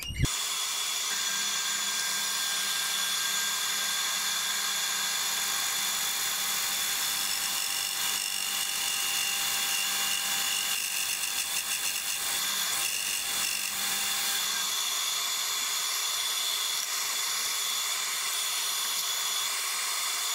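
An electric power tool running steadily, a high whine over a rushing noise, starting abruptly.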